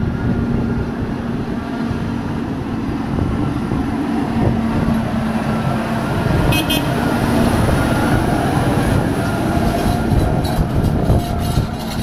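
JCB Fastrac tractor towing a Pottinger Impress round baler drives past, its engine running steadily. A short high chirp comes about halfway through, and metal rattles and clanks come in the last couple of seconds as the rig goes by.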